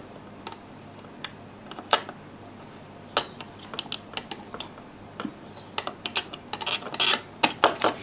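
Light, sharp clicks and taps of small tools working a mouse's circuit board while desoldering a micro-switch. They are scattered at first and come thick and fast from about six seconds in.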